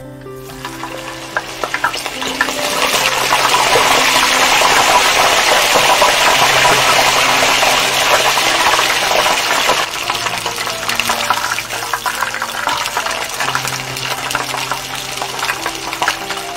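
Baby crabs frying in hot oil. The sizzle builds over the first few seconds as the crabs go in and their moisture boils off, stays loud, then settles about ten seconds in into a quieter crackling bubble.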